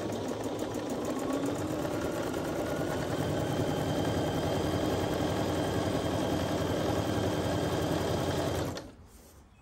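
Computerised domestic sewing machine stitching a seam through pieced quilt patchwork, the needle running in a fast, steady rhythm that grows a little louder over the first few seconds and stops abruptly near the end.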